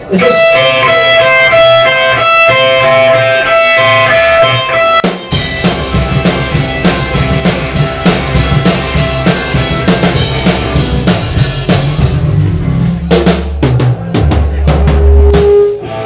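Live punk rock band with an electric guitar playing alone at first, then the drum kit and bass coming in with the full band about five seconds in. The drums are heard close up. After about twelve seconds the playing breaks into separate accented hits.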